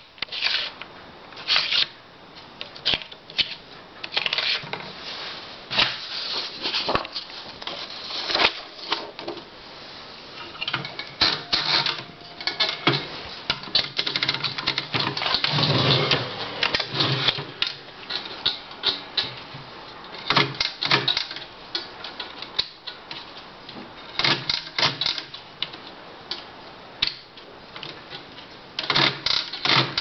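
Olympia SG3 manual desktop typewriter being worked: irregular mechanical clicks and clacks, with a dense run of rapid strokes around the middle.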